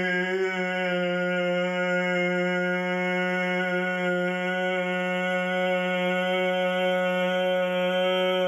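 A single voice holding one long sung vowel on a steady, unchanging pitch without a break: the drawn-out «и»/«ы» vowel-singing exercise used to train the soft palate and throat muscles.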